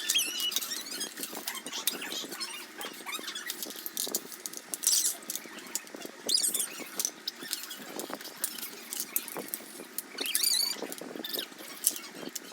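Plastic Lego pieces being handled and snapped together: scattered light clicks and rattles, with short high squeaks a few times.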